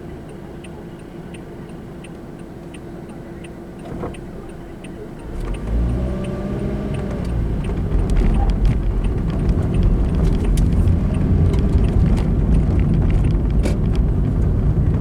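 Inside a car: a turn signal ticks evenly over a quiet engine hum. About five seconds in, the car pulls away, its engine note rising as it accelerates, and engine and road noise grow loud and stay steady.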